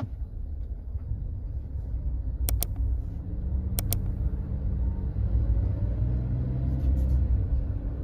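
Car engine and road rumble heard from inside a car moving slowly along a town street, growing a little louder about halfway through. Two sharp double clicks come about two and a half and four seconds in.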